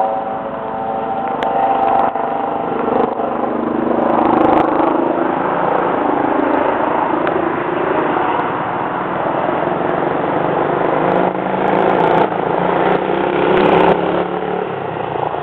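Helicopter flying by, a steady engine and rotor sound whose pitch drifts slowly.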